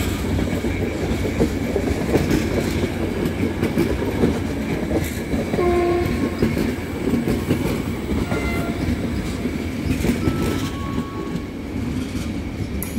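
Intercity passenger coaches rolling past at low speed: a steady rumble of wheels on rail with clicks over the track joints, and a few brief tones, the strongest about six seconds in.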